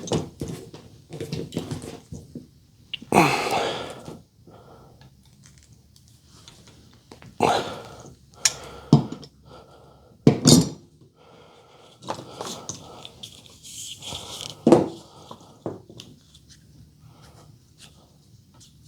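Hand tools and wiring being handled while wires are joined with butt connectors: scattered clicks and clinks, with a few louder scuffing rustles.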